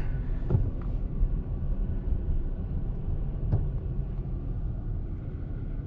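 Steady low rumble of a car's engine and tyres heard from inside the cabin as it drives slowly down a street, with a couple of faint clicks.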